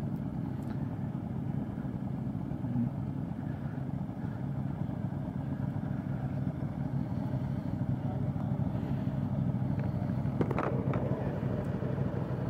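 The engine of a 2015 Triumph America cruiser, an 865cc parallel twin, idling steadily while the motorcycle creeps along at walking pace, heard through a helmet-mounted microphone. A brief, sharper sound comes about ten and a half seconds in.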